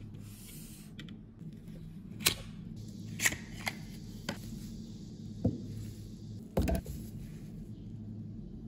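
Sharp clicks and taps of a gold metal lipstick case being handled in gloved hands, about six separate clicks with the loudest a double click about two-thirds of the way through. A low steady hum runs underneath.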